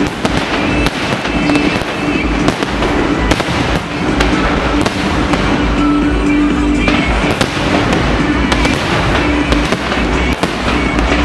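Fireworks display: shells bursting in quick, irregular bangs over continuous crackling, with music playing underneath.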